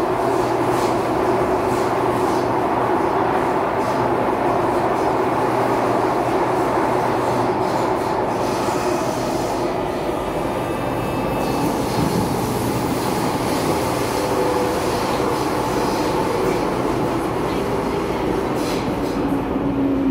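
Cabin noise of an SMRT C751B metro train (Kawasaki Heavy Industries / Nippon Sharyo) running between stations: a steady rumble of wheels on rail with motor hum and some wheel squeal.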